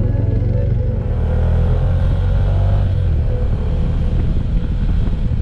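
Small Suzuki motorcycle riding along at steady speed: a steady low engine note under wind and road noise on the bike-mounted camera's microphone.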